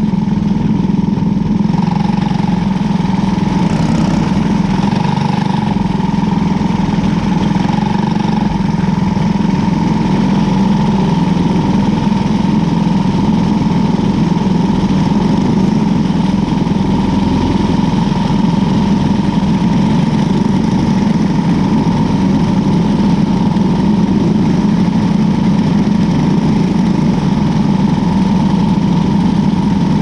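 Cadet wing kart's small engine idling steadily, recorded on board at close range, with no revving.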